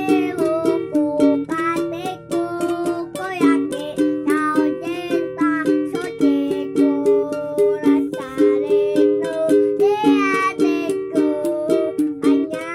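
A small child singing a high melody over a steadily strummed stringed instrument.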